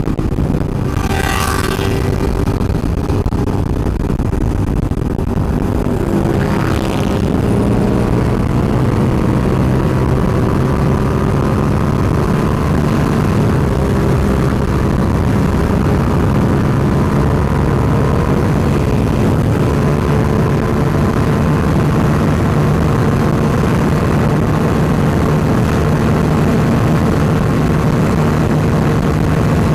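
Suzuki SV650's V-twin engine running at highway speed under wind rush, its pitch creeping slowly up as the bike keeps accelerating.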